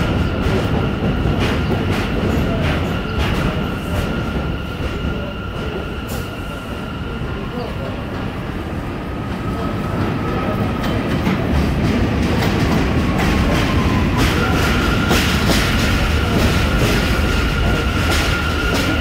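New York City subway train moving along the track, its wheels clicking over rail joints again and again, over a steady rumble and a steady high whine. The whine weakens in the middle and comes back strongly about 14 seconds in.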